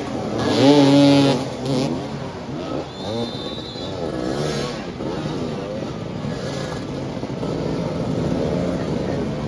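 Several motoball motorcycle engines revving up and down at once, with the loudest rev about a second in.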